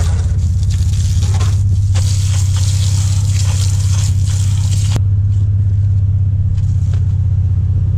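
Water spraying from a garden hose nozzle, a steady hiss that cuts off abruptly about five seconds in when the spigot is shut. A loud, steady low hum runs under it throughout.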